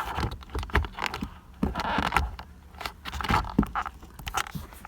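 Irregular scraping, rubbing and sharp clicks of hard plastic as the airbag module and steering-wheel parts are handled, over a faint low hum.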